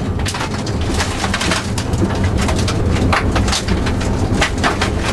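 BMW 318is four-cylinder engine running hard, heard from inside the cabin, with gravel and stones rattling and pelting against the underbody as the car drives over a loose dirt surface.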